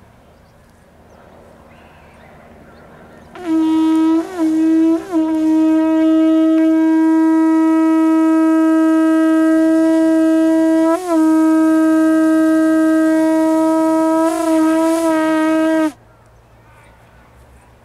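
Conch shell trumpet blown in one long, steady note lasting about twelve seconds, starting after about three seconds of quiet. The note breaks off briefly twice just after it starts, blips once midway and wavers near the end before cutting off suddenly.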